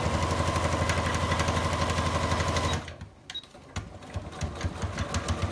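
Electric sewing machine stitching a seam through cotton fabric, running at a fast, steady needle rhythm with a steady hum, then stopping abruptly about three seconds in. A few light clicks and a brief, quieter run follow near the end.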